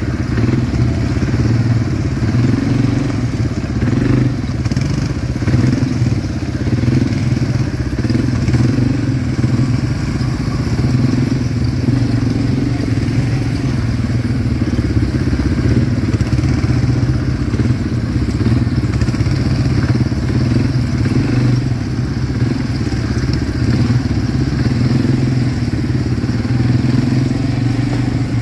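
ATV engine running steadily while being ridden, a constant low drone that holds an even level throughout.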